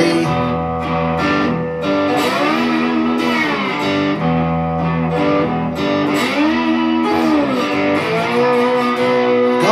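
Red Squier Stratocaster electric guitar played with a slide in a slow blues riff. Twice the notes slide up and back down in pitch, and it ends on a long held note.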